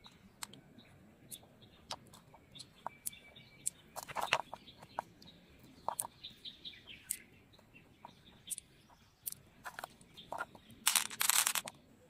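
Pearls clicking against one another and the shell as they are picked out of an opened freshwater mussel and gathered in the hand: a run of short, sharp separate clicks. A louder rustling scrape comes about four seconds in and a longer one near the end, with birds chirping in the background.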